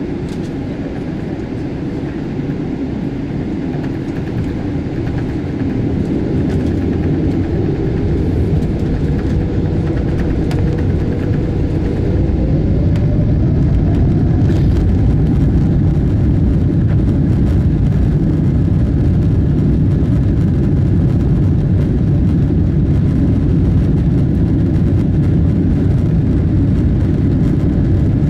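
Jet airliner engines heard from inside the passenger cabin, spooling up for the takeoff roll: a steady low rumble grows louder, with a whine rising in pitch about halfway through.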